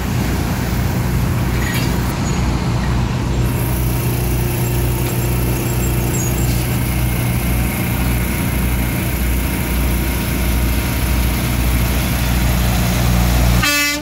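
Diesel semi-truck engine running with a steady low throb, then near the end a short, loud truck horn blast.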